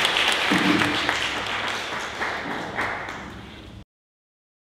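Audience and panel applause, slowly fading, then cut off suddenly near the end.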